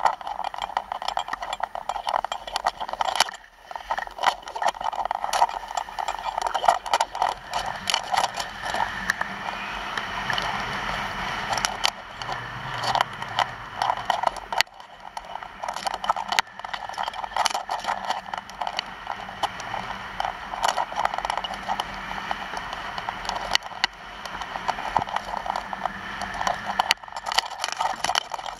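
Skis hissing and scraping over hard-packed groomed snow while skiing downhill, a continuous rough noise full of quick scratchy crackles that drops out briefly a few times.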